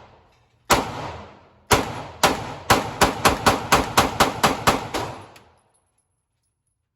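Gunshots at a shooting range: two single shots about a second apart, then a rapid string of about a dozen shots at roughly four a second, each with a short echoing tail.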